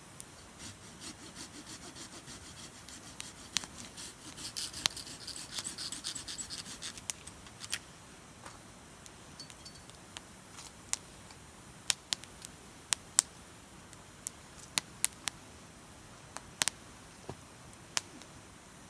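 Firewood burning with sharp, irregular crackles and pops, spaced out and standing alone in the second half. Over the first several seconds there is also a rhythmic rubbing, rasping sound of about three strokes a second, which swells into a hissing rush for a few seconds.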